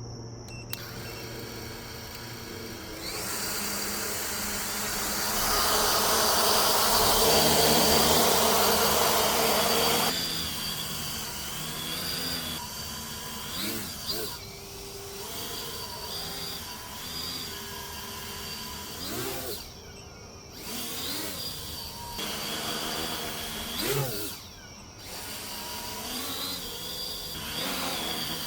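A 10-inch FPV quadcopter's brushless motors and propellers running, a whine that rises and falls in pitch as the throttle changes, loudest from about 5 to 10 seconds in. This is a test run on a newly fitted ESC stack to check for an odd noise from motor 4, and the owner judges it an improvement.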